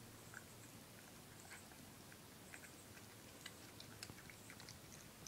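A cat chewing a moist, rehydrated cat food from a bowl: faint, scattered small clicks of eating, coming more often in the last couple of seconds.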